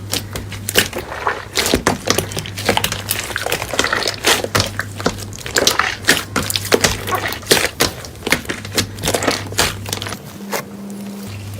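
Slime being squeezed and pressed by hand, giving a quick irregular run of sticky crackles, pops and squelches.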